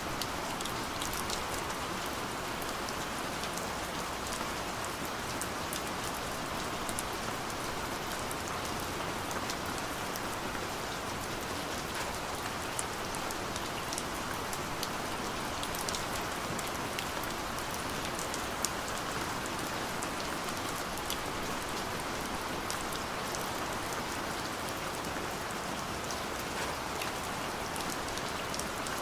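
Steady rain falling, a continuous hiss of rain on a surface with many individual drops ticking through it.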